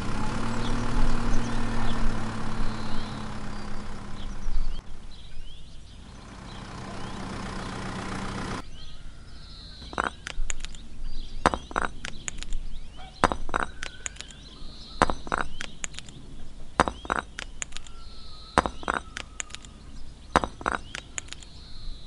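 A homemade toy tractor's small motor hums steadily for the first eight seconds or so. Then miniature bricks clink and knock one by one as they are dropped into the toy trailer, in a run of sharp, irregular clicks.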